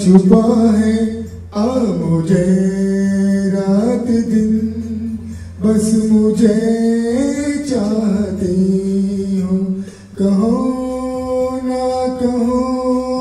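A man singing into a microphone, with long held, sliding notes in three phrases separated by short breaths.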